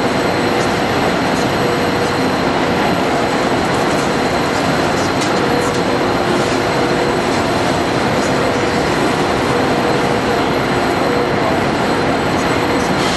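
Steady, even train noise as a Frecciabianca train pulls slowly into a station platform. Faint short squeals of wheels on the rails come and go.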